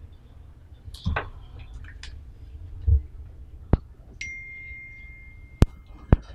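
A ding: a single high ringing tone that starts suddenly about four seconds in and holds for about two seconds, among a few sharp clicks and knocks.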